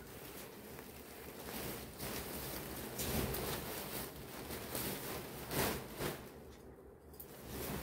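Silk saree fabric rustling and swishing as it is lifted, shaken out and spread by hand close to a clip-on microphone, in uneven swells, loudest about three and five and a half seconds in.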